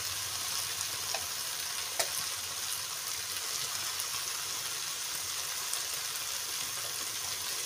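Sliced mushrooms sizzling in hot oil in a wok as they are stirred with a metal ladle: a steady frying hiss, with a single sharp click about two seconds in.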